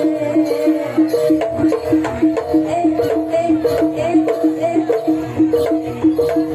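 Javanese jaranan music: a gamelan-style ensemble playing a fast repeating pattern of pitched metal notes over drum strokes.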